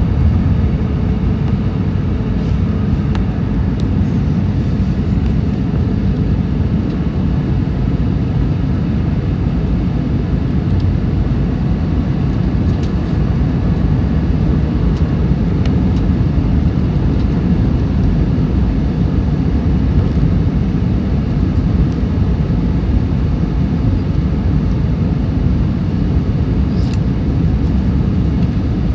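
Steady low rumble of jet engines and airflow heard inside the cabin of an Airbus A320-200 coming in to land.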